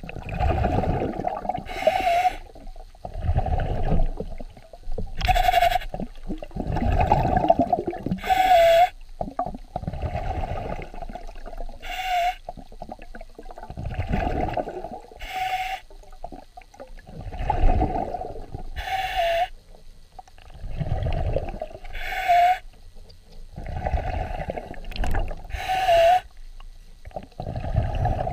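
A swimmer breathing through a snorkel while face-down in the water: slow, regular breaths, about one every three and a half seconds, each a longer low rush of air followed by a short, higher one.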